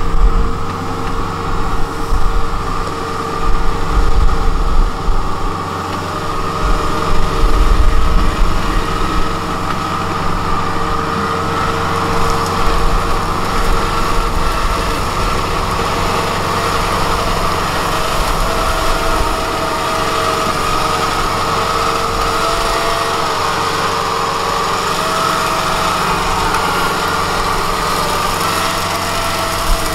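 Kubota DC-70 Plus rice combine harvester running under way, its diesel engine giving a steady drone with a high whine. Heavy, uneven low rumbling for the first nine seconds or so, then a steadier, more even sound.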